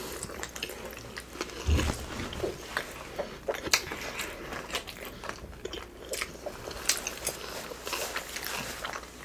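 Close-miked chewing and mouth sounds of people eating animal fries and fish tacos: many small, irregular clicks and smacks. A low thump comes a little under two seconds in.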